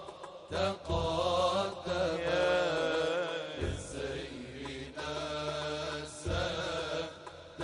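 A man singing an Islamic devotional song in praise of the Prophet Muhammad (madih nabawi) in long, ornamented phrases that waver in pitch, with short breaks between phrases. A low steady hum runs underneath.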